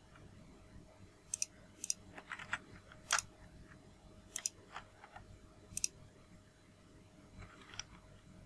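Computer mouse clicking: about five sharp clicks with softer ones between them, mostly in the first six seconds, over a faint steady hum.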